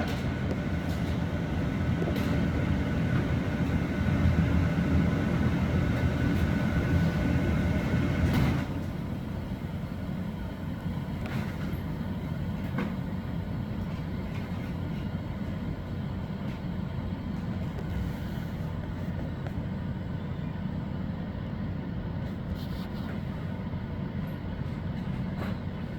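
Steady low mechanical rumble with a faint steady whine over it. The whine stops about eight and a half seconds in, and the rumble carries on a little quieter.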